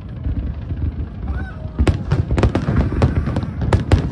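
Fireworks display: low rumbling booms, then from about two seconds in a rapid run of sharp bangs and crackles from bursting shells.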